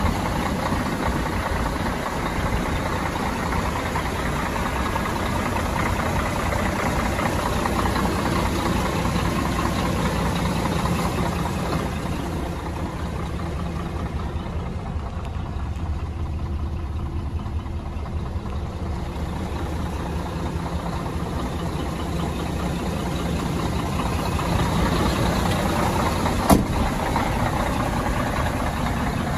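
Scania R420 truck's 12-litre straight-six diesel idling steadily. It sounds muffled for a few seconds midway, heard from inside the cab. One sharp knock comes near the end.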